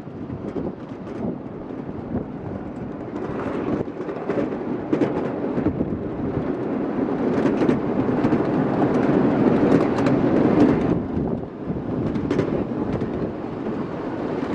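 Miniature ride-on railway train running along its track: a steady rumble of wheels on rail with irregular clacks, growing louder towards the middle and easing off briefly after that.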